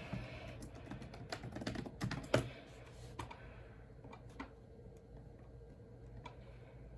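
Typing on a computer keyboard: a quick run of key clicks for the first couple of seconds, then scattered single clicks, over a faint steady hum.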